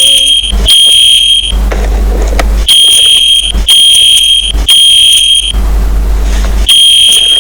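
Fire alarm horn sounding the evacuation signal: a loud, high-pitched beep repeated in groups of three, each group followed by a pause of about a second (the temporal-three pattern).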